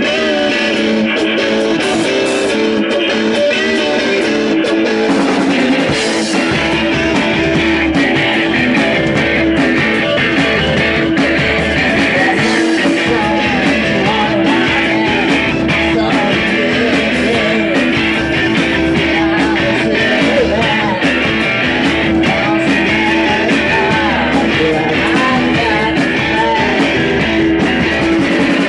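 Rock band playing live, led by electric guitar over a steady droning note; the bass end fills in about six seconds in.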